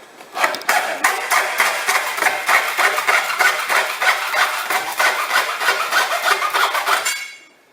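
Hacksaw sawing through the steel bead ring inside a tyre, in quick, even back-and-forth strokes that stop about seven seconds in.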